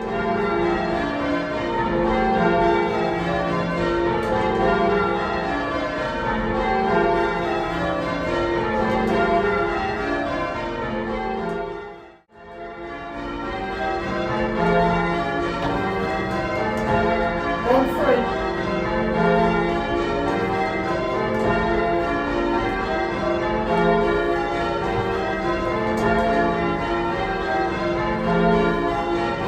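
Ring of eight church bells with a tenor in F, mostly Gillett & Johnston bells of 1937 and two 1750 Thomas Wroth bells, rung full-circle in English change ringing. The strokes follow one another in an even, continuous stream. There is a brief break in the sound about twelve seconds in.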